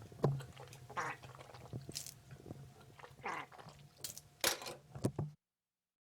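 Short, wet mouth sounds at the end of toothbrushing: a string of spits and swishes, about half a dozen, before the sound cuts off just over five seconds in.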